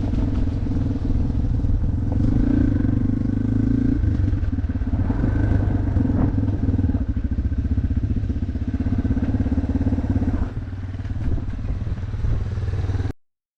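Yamaha off-road motorcycle engine running with a fast, steady pulse, easing off about ten and a half seconds in, then cutting off suddenly near the end.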